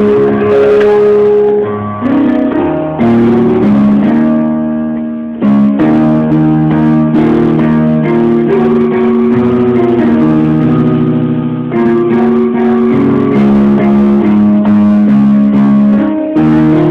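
Electronic keyboard playing slow, sustained chords that change every second or two over a lower bass line.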